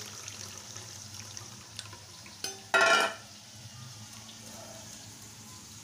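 Coconut milk trickling and dripping through a plastic tea strainer into a steel bowl. About three seconds in, a short, loud, high-pitched sound of unclear source cuts across it.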